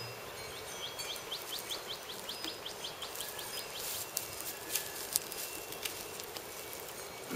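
Outdoor summer ambience: a steady insect hum, with a small bird giving a rapid run of high chirps, about five a second, starting about a second in. Scattered light clicks and rustles in dry grass and pine needles follow.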